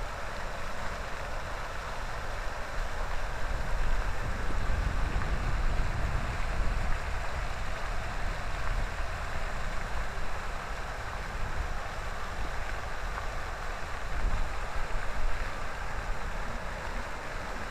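Many fountain jets splashing down into a pool, a steady rush of falling water, with an uneven low rumble underneath.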